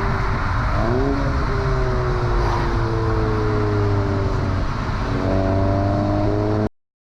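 Volkswagen Golf 7 GTI's turbocharged four-cylinder engine through its stock exhaust while driving, over road and wind noise. The pitch rises briefly about a second in, then falls slowly, and steps up a little after five seconds as the DSG gearbox shifts down. The sound cuts off abruptly near the end.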